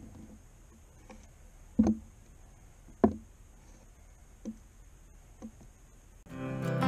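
A few scattered knocks and taps of a hand tool working at a small boat's console, the two loudest about a second apart. Acoustic guitar music comes in near the end.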